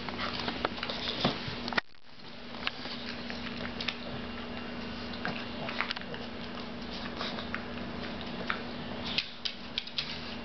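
Pug eating moist meat food from a paper plate: wet chewing and lip-smacking with scattered small clicks, over a steady low hum. Near the end a few sharper clicks as its claws tick on the wooden floor.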